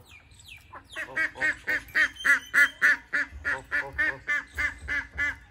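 Ducks quacking in a rapid, even run of calls, about four a second, starting about a second in.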